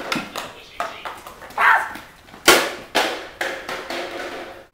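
A run of knocks and thumps, with a brief higher sound about a second and a half in; the loudest thump comes about two and a half seconds in.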